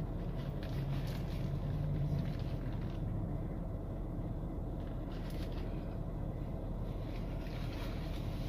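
Steady low hum and hiss inside a parked SUV's cabin with the engine idling.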